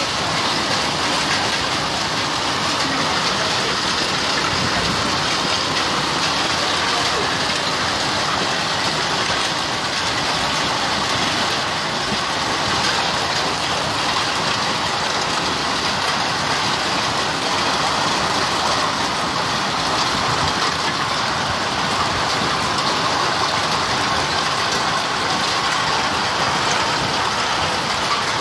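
Hailstorm: hail and rain coming down steadily onto a lawn and the surfaces around it, a dense, even hiss made of countless small impacts that never lets up.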